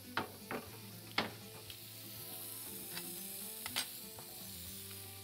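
Cherry tomatoes and onion wedges sizzling steadily in a hot ridged grill pan. A few sharp knocks land among the sizzle, two of them in the first second and a half and another near four seconds.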